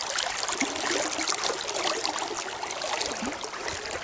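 River water splashing and trickling close by around a chub held in the hand at the surface: a steady patter of small splashes and drips.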